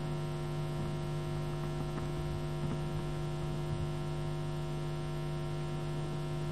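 Steady electrical mains hum: a low buzz with a stack of evenly spaced overtones, unchanging throughout.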